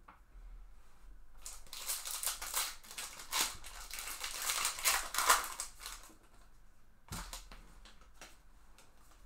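Foil wrapper of a Bowman baseball card pack being torn open by hand, a dense crinkling crackle for a few seconds. A single sharp tap follows about a second later.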